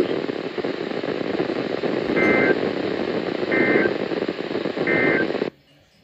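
Weather radio receiver hissing with broadcast static, with three short warbling two-tone data bursts about 1.4 seconds apart: the Emergency Alert System end-of-message code closing the warning. The static cuts off abruptly about five and a half seconds in as the transmission ends.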